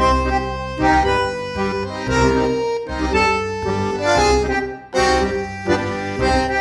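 Instrumental music with held melody notes over a steady bass beat.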